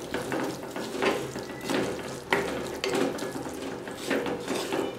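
Wooden spatula stirring and scraping thick masala against the sides of a clay pot, repeated scrapes a little more than once a second, with sizzling under them.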